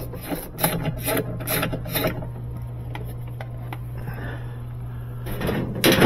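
Hand tools working on the underside of a GE washing machine: short rasping strokes about twice a second, stopping about two seconds in, then louder knocks near the end.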